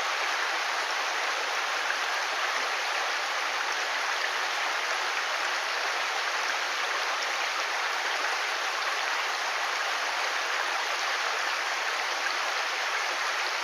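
Mountain stream water running, a steady even rush with no change throughout.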